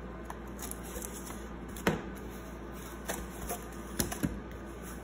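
Yarn being pulled taut through the notches of a cardboard loom: a few sharp snaps and taps of the string against the cardboard. The loudest comes about two seconds in, and two more follow close together near the end.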